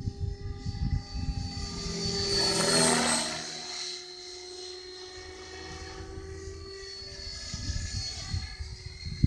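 Electric RC helicopter, a Logo 500 with an Align 600MX brushless motor, in flight: high motor and gear whine over rotor blade noise. It swells loudest about two to three seconds in, then settles to a steadier, quieter whine.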